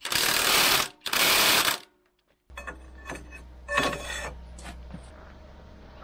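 Cordless impact wrench hammering in two bursts of just under a second each on rusted bolts. After a pause comes a quieter low steady hum with a few short metallic knocks.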